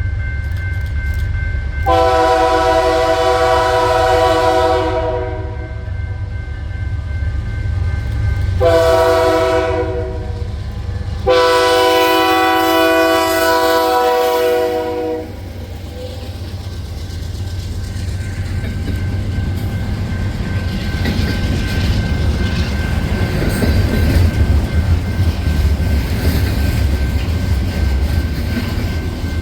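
Canadian Pacific freight locomotive's multi-chime air horn sounding a long, a short and a long blast, the closing part of the grade-crossing signal, over the low rumble of the train. After the last blast the rumble and clatter of the passing train continue and grow louder.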